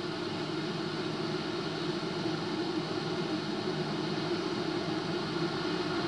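Steady wind sound effect on the animatic soundtrack, a constant whooshing rush with no breaks, played through the monitor's speakers.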